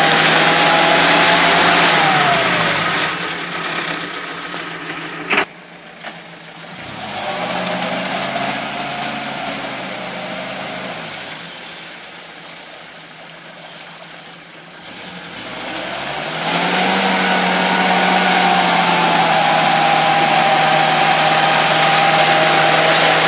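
UAZ-469 off-roader's engine running at steady revs as it pulls through mud, loud at first, dropping away after a couple of seconds, then growing loud again about two-thirds of the way through as the vehicle comes close. There is a single sharp click about five seconds in.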